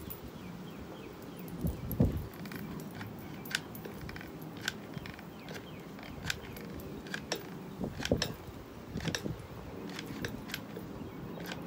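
Scattered light metallic clinks and jingles from metal bangle bracelets on the wrist working a hot glue gun around the edge of a glass plate, with a soft bump about two seconds in and another near eight seconds.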